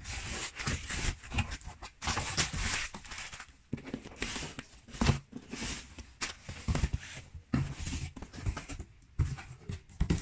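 Cardboard shipping box handled and opened by hand: irregular scraping and rustling of cardboard with frequent sharp knocks and taps.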